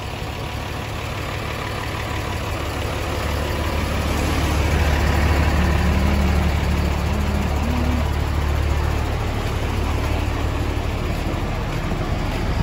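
Large cargo truck's engine idling, a steady low rumble that grows louder for a few seconds in the middle and then eases back.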